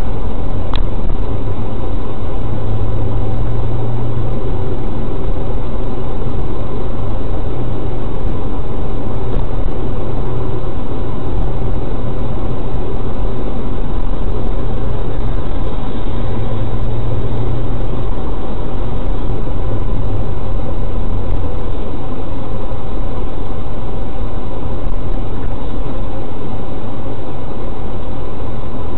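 Loud, steady running noise of a heavy moving vehicle: engine and rolling rumble, even and unchanging, with one brief click about a second in.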